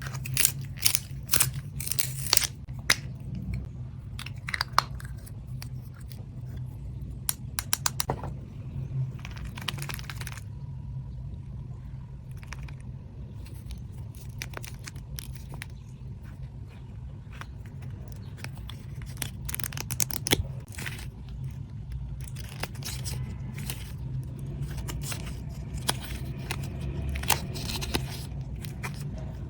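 Hands unpacking stationery and its packaging: irregular crinkles, taps and scrapes, over a steady low hum.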